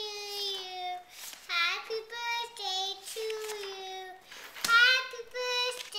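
A toddler girl singing on her own in a high voice, a run of drawn-out notes that waver and slide a little. About four and a half seconds in there is a single sharp knock, right before her loudest note.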